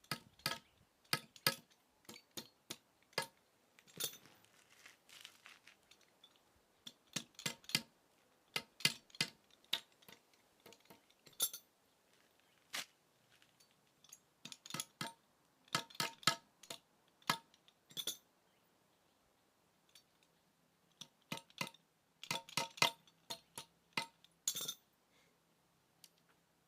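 Hammer driving small headless nails into timber: light, ringing metallic taps in quick runs of several strikes, with pauses between runs.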